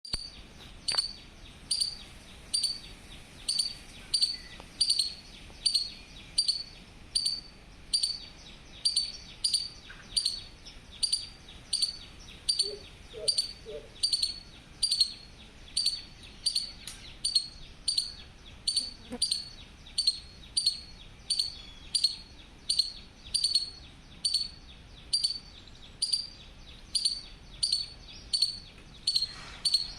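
Squirrel calling: a sharp, high-pitched chirp repeated at a steady pace, about three every two seconds, without a break.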